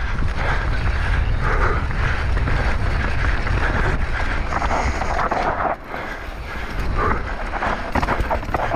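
Heavy wind buffeting the microphone over the rolling and rattling of a mountain bike descending a rough trail at speed, in continuous irregular bursts.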